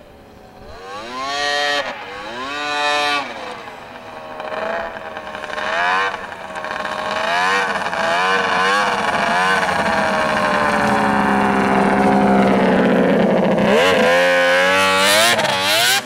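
Arctic Cat snowmobile engine revving: a couple of short throttle blips, then several more rises and falls in pitch, growing louder as the sled comes closer. It then holds high revs for a few seconds, dips and sweeps back up near the end.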